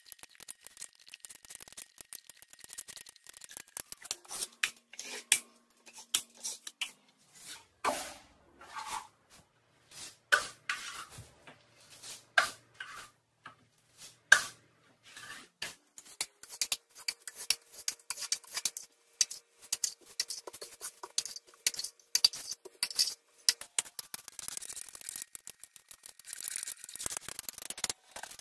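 Stainless steel mud knife scraping and spreading Sheetrock mud over painted wood paneling: irregular rasping strokes with clicks and clinks as the knife meets the metal mud pan, the rasping denser near the end.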